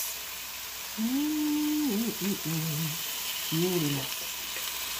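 Freshly grilled lamb rib chops sizzling steadily on the hot grill grate of a Ninja Foodi Grill.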